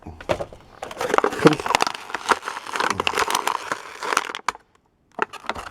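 Plastic toy packaging crinkling and crackling as it is handled and pulled open, with quick irregular clicks, and a short pause near the end.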